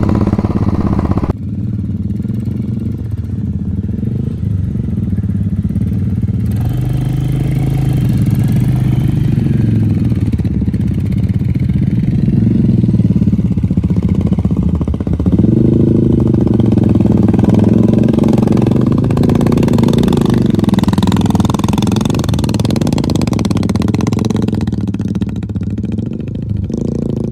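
Royal Enfield Classic motorcycle's single-cylinder engine running under way, its pitch rising and falling as the bike pulls through soft sand.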